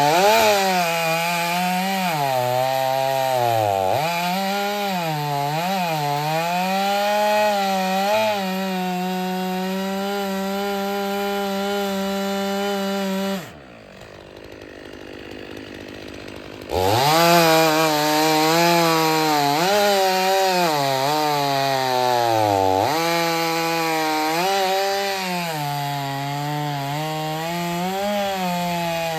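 Two-stroke chainsaw running at full throttle and cutting firewood. Its pitch dips and recovers repeatedly as the chain bites into the wood. The sound falls away for about three seconds past the middle, then comes back suddenly at full speed.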